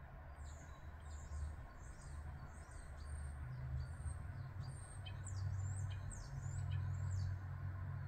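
Common starling singing: a run of high thin whistles, many sliding downward, mixed with a few short clicks, coming thicker from about three seconds in. A steady low rumble lies underneath.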